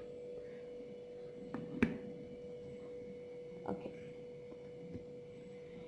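A steady faint hum in the background, with a few soft knocks as a chocolate sponge cake layer is handled and set down on a foil cake board, the clearest about two seconds in and another near four seconds.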